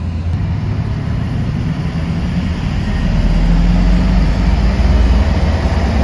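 Pickup truck engine running at close to 3,000 rpm, with road noise, heard from inside the cab. The hum grows louder about halfway through.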